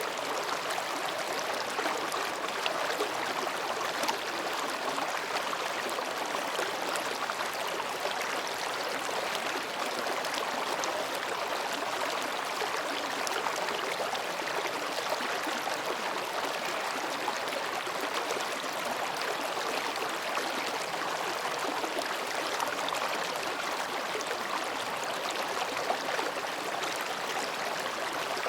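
Mountain stream babbling steadily over and between rocks, a continuous even rush of water.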